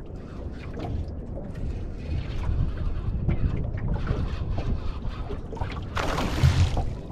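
Wind buffeting the microphone over the low rumble of water around a small open fishing boat at sea, with a louder rushing burst about six seconds in.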